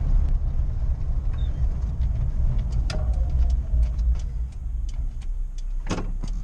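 Suzuki Samurai engine and road noise heard from inside the cabin while driving: a steady low rumble with scattered small rattles and ticks, and a short sharp knock about six seconds in.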